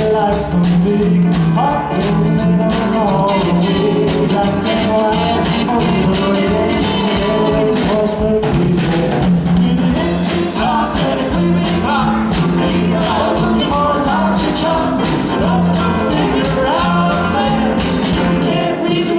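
A live swing band playing an up-tempo instrumental passage, with drums keeping a steady beat under the instruments.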